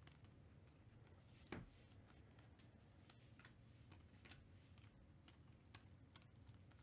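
Faint clicks and slides of glossy Panini Mosaic football cards being flipped one at a time from a stack in the hands, with one sharper card snap about a second and a half in.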